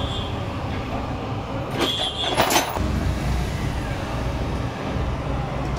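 Steady low rumble of road traffic, with a brief louder clatter and a short high tone about two seconds in.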